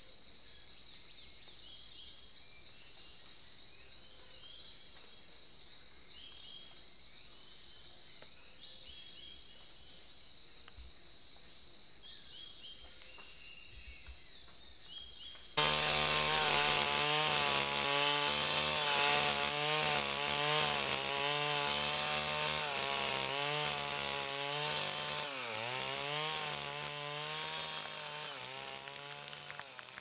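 Rainforest insects trilling steadily in high pulsing tones, with occasional short chirps. About halfway through this cuts off abruptly to a chainsaw running and cutting wood, its engine pitch wavering and dipping sharply once before it fades near the end.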